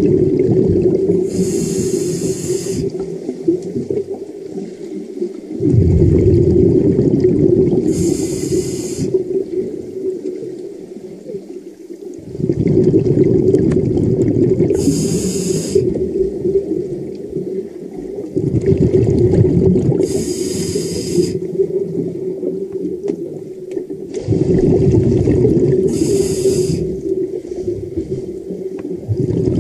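Scuba diver breathing underwater through a regulator: a high hiss of the regulator with each breath and the low rush of exhaled bubbles, about one breath every six seconds.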